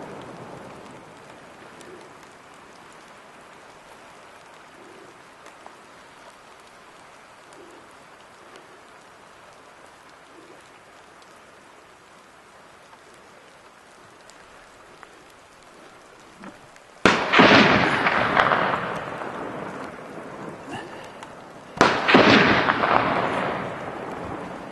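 Two gunshots about five seconds apart, each cutting in suddenly and rolling away over a couple of seconds, over a steady hiss.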